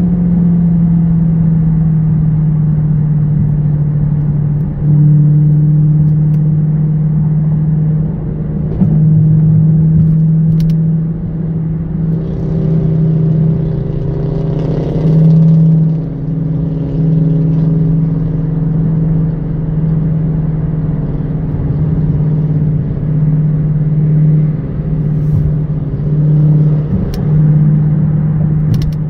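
Car engine and exhaust droning at steady highway cruise, heard from inside the cabin. The drone swells a few times as the throttle is opened, and its pitch shifts slightly.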